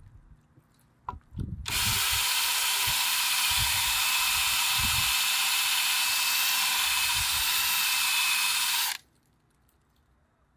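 Cordless drill spinning a 90-degree countersink bit into the wetted carbon fibre of a hydrofoil wing, countersinking a screw hole. It makes a steady whirring for about seven seconds, then stops suddenly. A few low knocks of handling come before the drill starts.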